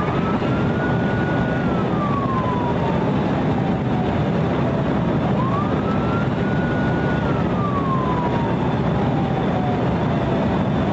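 Police car siren on a slow wail: the pitch climbs quickly, holds briefly, then slides slowly down, about twice through, over steady background noise.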